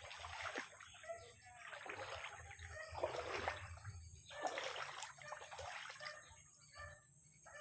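Water splashing in several irregular bursts, with a steady high hiss throughout.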